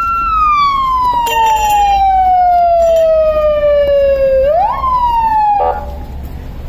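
Police siren wailing: a loud tone that glides slowly down in pitch for about four seconds, swoops back up once, and cuts off about five and a half seconds in.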